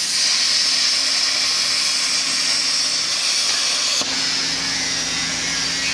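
Cutting torch on a beam coping machine cutting through a steel wide-flange beam, a loud steady hiss over a steady machine hum. About four seconds in the sound shifts abruptly, the high hiss easing and a low rumble coming up.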